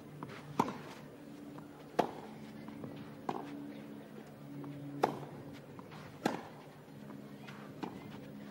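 Tennis rally on a clay court: the ball is struck back and forth by the players' rackets, six sharp hits about one every one and a half seconds.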